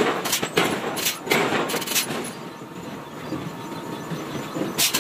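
Irregular sharp metal clanks and knocks from foundry work on a red-hot iron casting, coming a few tenths of a second apart. They fall quiet for about two seconds in the middle and start again near the end.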